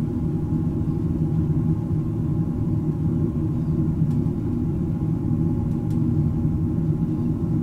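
Steady low rumble of ship engines with a constant hum, heard from inside the ferry; a few faint clicks around the middle.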